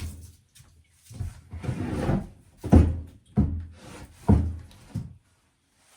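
A series of heavy knocks or blows, about six strikes in five seconds, with a longer scraping rustle around two seconds in; it stops about five seconds in.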